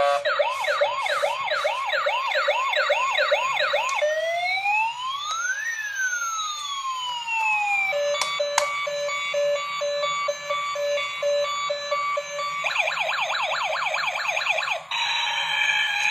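A transforming toy police car's electronic siren playing through its small built-in speaker, cycling through patterns: a fast yelp, then a slow rising and falling wail about four seconds in, then a steady stepped beeping pattern, then the fast yelp again near the end.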